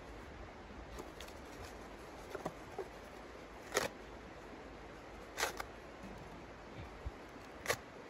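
Three sharp snaps a second or two apart, with lighter ticks between them, over a steady faint hiss.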